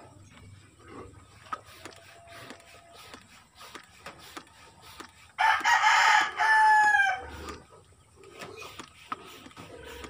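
A rooster crowing once: a drawn-out call of about two seconds starting about halfway through, falling in pitch at the end. Faint scattered clicks and knocks come before and after it.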